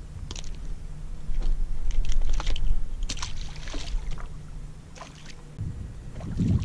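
Handling noise as a small speckled trout is unhooked and tossed back into the water. It is a low rumble on the action camera's microphone, loudest about two seconds in, with scattered clicks and splashes.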